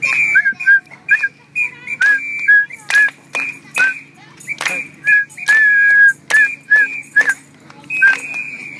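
Whistling in a quick run of short chirping blips and longer held notes, jumping between a higher and a lower pitch. Sharp clicks or knocks are scattered in between.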